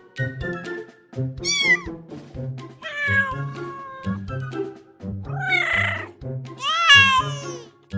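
Kitten meowing four times, high cries of varying length, the last long and falling in pitch, over background music.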